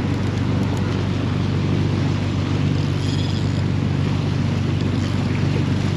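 A 31-foot Bertram sportfishing boat's engines running with a steady low drone, under a constant hiss of wind and water.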